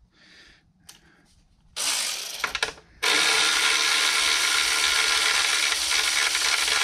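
Cordless electric ratchet running on a small engine cover bolt: a short burst, then from about three seconds in a steady, loud whirr.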